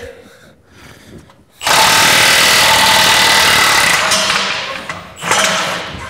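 Milwaukee cordless impact wrench hammering on the old anode rod plug in the top of a tank water heater, breaking it loose to back the rod out. It starts about one and a half seconds in, runs steadily for about three seconds, then eases off with a short last burst near the end.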